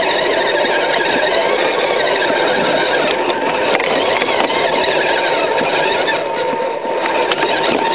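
Electric motor and gearbox of a radio-controlled Tamiya TLT-1 crawler whining steadily as it drives over grass, heard close from a camera mounted on the car. The sound eases briefly near the end.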